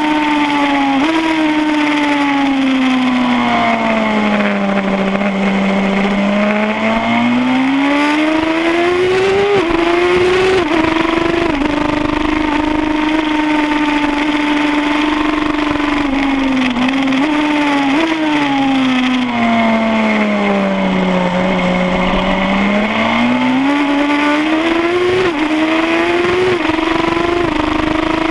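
Suzuki GSX-R1000 K7 inline-four engine at racing pace. The revs sink twice as the bike slows for corners and climb again, with short steps at the gear changes, over a steady rush of wind.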